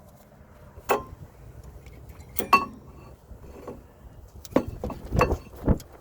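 Metal brake parts being handled: a handful of separate sharp metallic clinks and knocks, spaced irregularly, as the caliper is hung on a steel S hook and the pads are worked loose.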